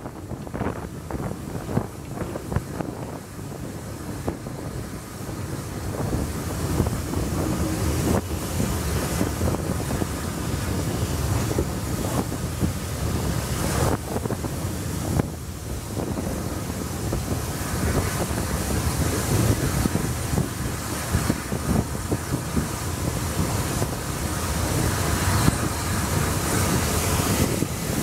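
Steam-hauled train running and picking up speed, heard from a carriage window: wind buffeting the microphone over the rumble and clatter of the train, growing louder over the first several seconds.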